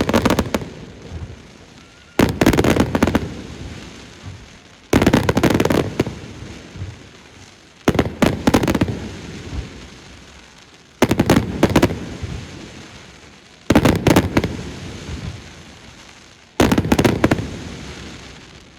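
Aerial fireworks shells bursting one after another, a cluster of sharp cracks and bangs about every three seconds, each fading away in a rumbling echo before the next. Six such bursts, the last near the end dying away.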